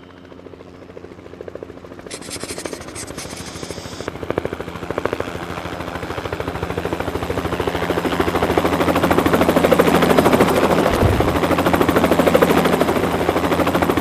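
Helicopter rotor blades chopping in a rapid, even rhythm, growing steadily louder as the helicopter is fired up.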